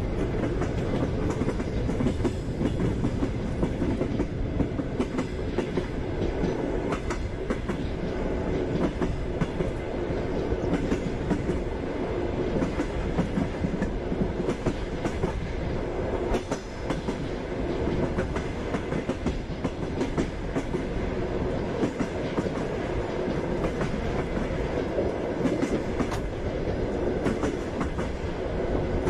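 Passenger train running steadily: the constant rumble of the carriage with the clickety-clack of its wheels over the rail joints.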